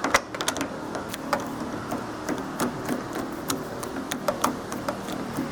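Irregular sharp clicks of a hand tool working a 10mm screw loose inside the door edge, behind the outer door handle.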